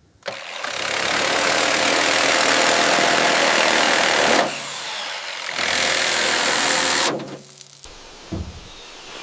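A motor-driven machine running loudly in two long stretches, about four seconds and then a second and a half, a harsh hiss over a steady hum. A few light knocks follow near the end.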